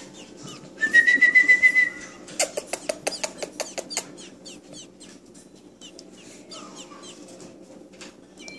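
Baby robin nestling begging while being hand-fed: a short wavering whistled call about a second in, then a quick run of sharp clicks with faint high peeps, quieter toward the end.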